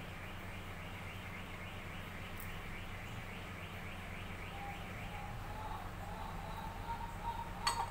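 A small bird chirping in the background in rapid, evenly repeated notes, about five a second, that stop about five seconds in, over a steady low hum. A single sharp click comes near the end.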